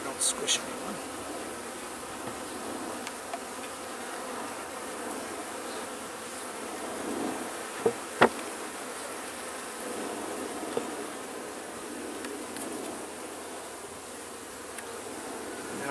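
Honeybees buzzing steadily around an open hive. The wooden inner cover clicks as it is set on near the start, and a metal hive tool knocks sharply twice against the cover about eight seconds in.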